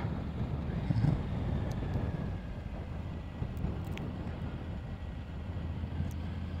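Triumph Tiger 900 GT Pro motorcycle on the move: its three-cylinder engine running steadily under wind and road noise while cornering.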